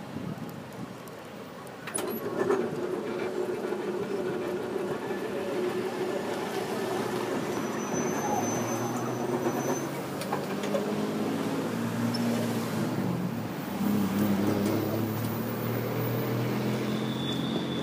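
Distant diesel freight train running, heard as a steady low engine rumble that comes up about two seconds in and grows slightly stronger later.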